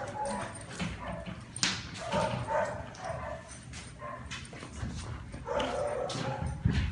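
Young dogs playing rough together, giving many short yips and whimpers, with scuffling and bumps.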